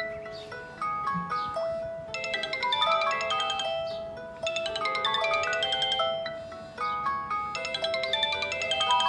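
Smartphone ringtone playing a melody of short, bell-like mallet notes, filling out into a fuller repeating phrase about two seconds in.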